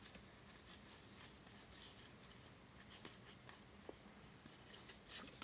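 Faint flicking and rustling of baseball cards being thumbed through one at a time: short, irregular ticks of card stock sliding over card stock.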